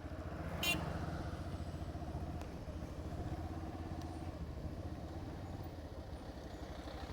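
Motorcycle engine running steadily at low speed, with an even low pulse. A brief, sharp high-pitched sound cuts in about a second in.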